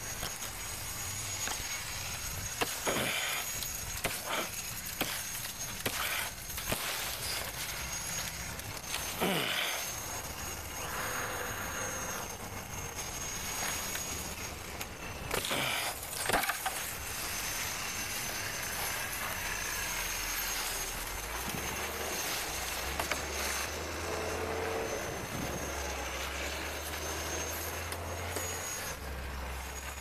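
Tree branches and brush being cut and broken, with a series of sharp woody cracks and snaps, most of them in the first half, amid rustling leaves.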